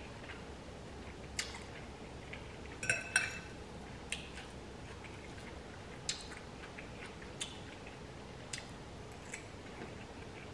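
A fork clinking against a glass bowl, two short ringing clinks about three seconds in, amid scattered soft mouth clicks from chewing noodles.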